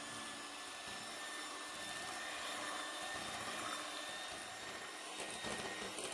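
Electric hand mixer running steadily, its wire beaters whipping eggs and sugar into a pale, foamy batter: a constant motor whine with a thin high tone.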